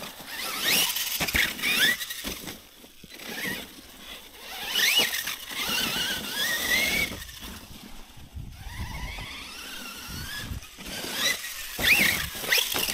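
Losi LMT Grave Digger 1/10 RC monster truck's electric motor whining, its pitch rising each time the throttle is opened, about five times over.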